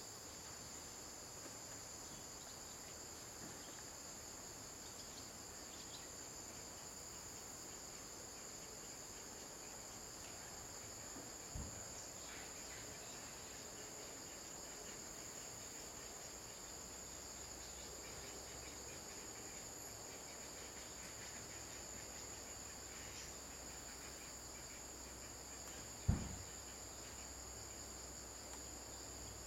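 Steady insect chorus, a shrill high drone with no break, with two dull low thumps, one about halfway through and a louder one near the end.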